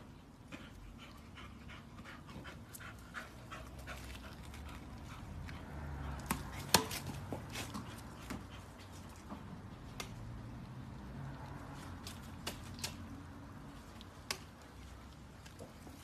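A dog panting in a quick rhythm, with scattered sharp clicks and taps; the loudest click comes about seven seconds in.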